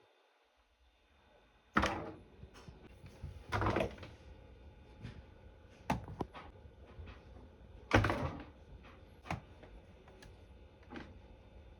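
Cats play-fighting: a series of sudden thumps and brief scrabbling scuffles, about six in all, the loudest about two seconds and about eight seconds in.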